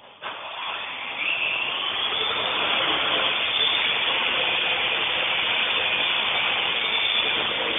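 Parrot AR.Drone quadcopter's four electric motors and propellers spinning up for takeoff and hovering. A whirring with a whine that rises over the first two seconds, then holds steady.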